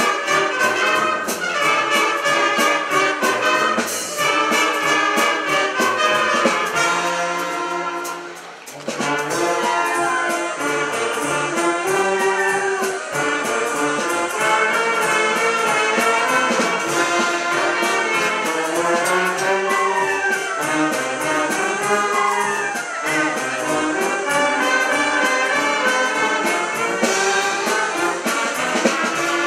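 Wind band playing a lively piece, brass and clarinets together over a steady beat. The sound thins briefly about eight seconds in, then the full band comes back in.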